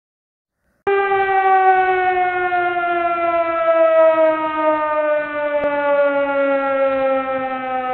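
A siren sounds one long, unbroken tone, starting about a second in and falling slowly and steadily in pitch.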